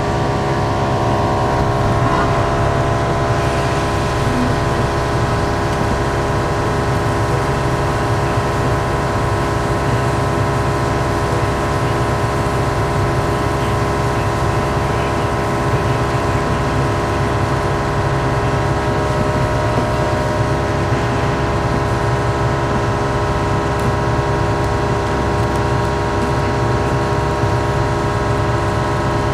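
Steady, unchanging kitchen hum of several held tones over a commercial gas range burner heating a steel frying pan, the water droplets in the pan boiling off.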